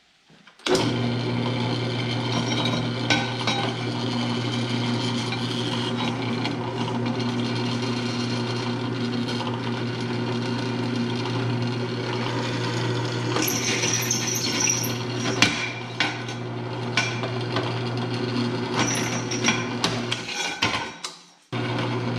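Drill press motor running with a steady hum while the bit bores through steel square tubing, with scraping cutting noise and a high squeal for a second or so partway through. The sound drops away briefly near the end and then starts again.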